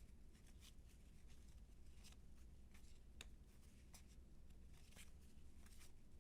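Faint, irregular clicks and slides of baseball cards being handled and flipped through one by one, over a low steady hum.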